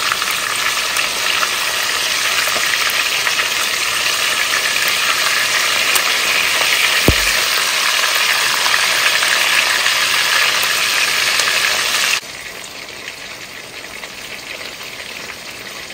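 Pieces of dried salted tilapia (koobi) frying in palm oil in a pot, a steady sizzle that drops suddenly to a quieter level about twelve seconds in.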